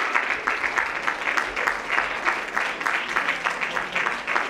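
Audience applauding, a dense run of many people's claps.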